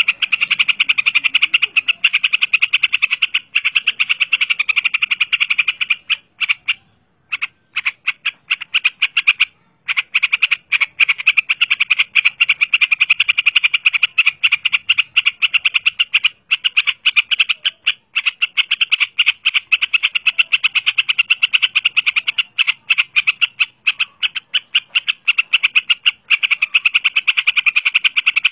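Yellow-vented bulbul giving a fast, rattling chatter of rapid clicking notes, nearly without pause, with a few short breaks about a quarter of the way in.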